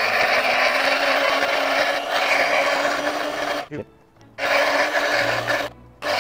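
Electric drill-bit sharpener's grinding wheel grinding the tip of a high-speed steel drill bit flat as the bit is turned in its chuck: a harsh, steady grinding. It cuts off abruptly twice, once about two-thirds of the way through and again just before the end.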